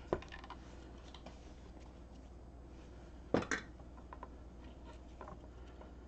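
A few light clicks and taps from hands handling the coax cable, solder spool and soldering iron on a wooden board, the sharpest a quick double click about three and a half seconds in, over a steady low hum.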